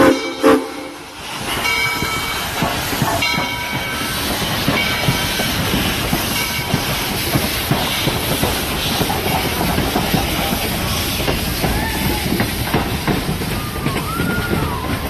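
A train's steam whistle finishes its last blast in the first second. The train then runs on with a steady rumble and rail clatter. Two brief higher tones sound around two and three seconds in, and a faint wheel squeal rises and falls near the end.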